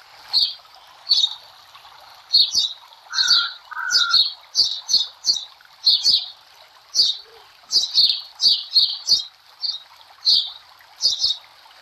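Birds chirping in short high calls, about two a second, over a steady hiss of running water.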